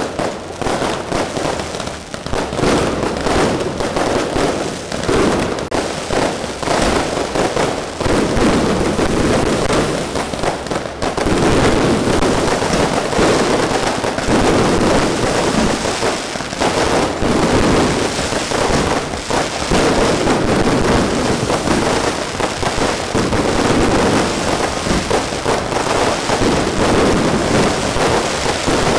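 Fireworks going off in a dense, continuous barrage of rapid cracks and bangs, with no let-up.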